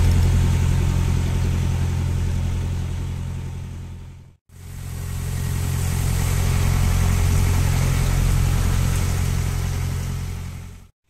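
Fishing boat's engine running steadily, a low drone with a hiss of water and wind over it. It fades out to silence about four seconds in, comes back, and fades out again near the end.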